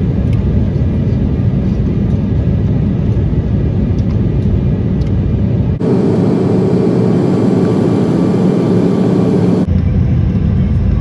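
Airliner cabin noise from a window seat: a steady, loud rumble of jet engines and airflow as the plane descends to land. The tone changes abruptly twice, near the middle and near the end, as separate clips are spliced together; the last part is the plane on the runway.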